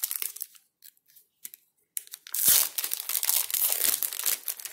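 Foil Pokémon booster pack (Sun & Moon Unified Minds) being torn open and crinkled by hand. There are a few light crackles, then from about two seconds in a loud stretch of tearing and crinkling foil.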